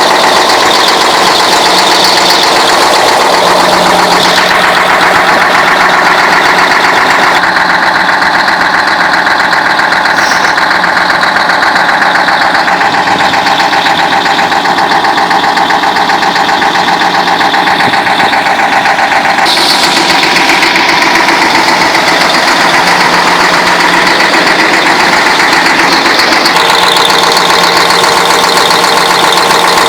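YaMZ-6581.10 V8 turbodiesel truck engine running, with fast, even knocking through the running sound and its tone shifting a few times. The owner calls it an unexplained knock.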